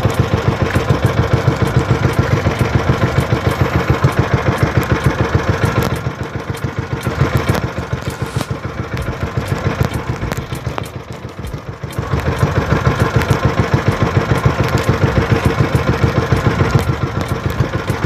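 Boat engine of a motorized outrigger boat running under way, with a fast, even chugging beat. It runs quieter for a few seconds in the middle, then louder again.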